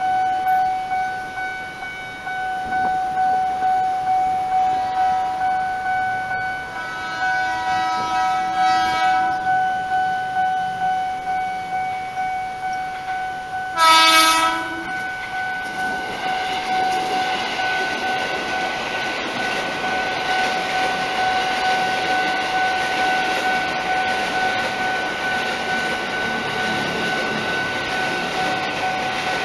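Railway level-crossing warning bell ringing throughout, pulsing steadily about one and a half times a second. A train horn sounds faintly around seven seconds in, then a short loud blast at about fourteen seconds. From about sixteen seconds the rumble of a KRL commuter electric train passing through the crossing joins the bell.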